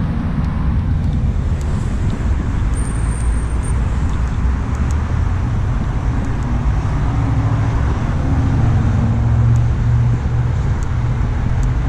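Steady low rumble of road traffic and vehicle engines, with an engine hum that swells a little about eight seconds in.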